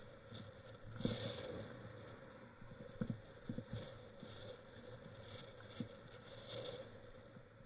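Mountain bike ridden over rough ground: a few sharp knocks and rattles, the strongest about a second in and about three seconds in, over a faint steady hum.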